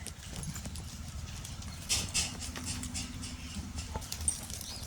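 Goats moving about, their hooves clicking and knocking on a hard floor, with the loudest knocks about two seconds in.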